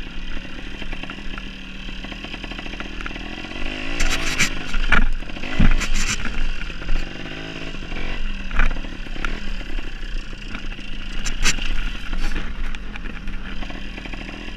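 Dirt bike engine running while ridden over rocky ground, its revs rising and falling several times. Several sharp knocks and clatters mix in, around four to twelve seconds in.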